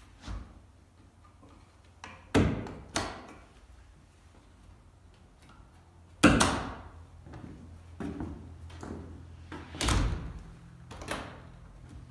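Jeld-Wen French patio doors being locked up: the stationary door's flush bolts are pushed into place and the doors are shut and latched. This gives a string of sharp clicks, knocks and clunks, the loudest about six seconds in and another strong one near ten seconds.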